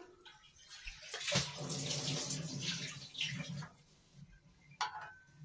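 Hot cooking oil in a karahi sizzling and bubbling for a few seconds as the last fried egg-and-potato ball is scooped out with a slotted spatula. Near the end there is a single sharp click with a brief ring, as the spatula knocks against the serving plate.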